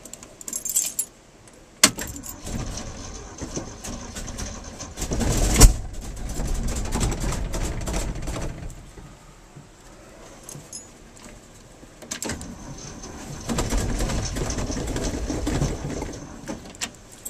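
A 1974 Ford F-250's engine being cranked by the starter in two long bursts on a weakening battery, each begun with a sharp click, without catching. About five and a half seconds in a single sharp pop, the loudest sound, is the engine backfiring through the carburetor. Keys jangle on the ignition key during the cranking.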